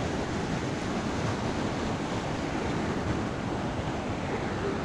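Ocean surf washing in steadily around a wading angler, with some wind noise on the microphone.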